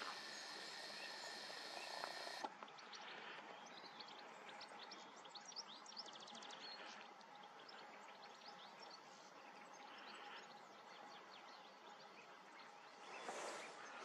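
Faint outdoor ambience: a steady hiss with many brief, high bird chirps through the middle, and two louder rushing bursts near the end.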